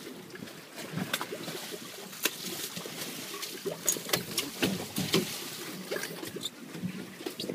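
Water sloshing and slapping against the hull of a small boat at sea, with scattered sharp knocks and clicks, the loudest a little after the middle.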